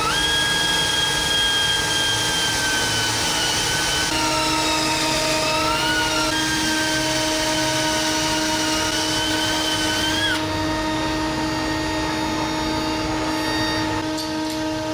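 Cordless drill running steadily as it bores a hole into the edge of a thick acrylic sheet. Its motor whine dips briefly under load and stops about ten seconds in. A steady background hum carries on after it.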